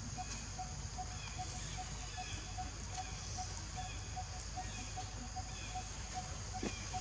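Outdoor ambience: a bird repeating one short low note steadily, a few times a second, over a steady high insect drone and faint chirps.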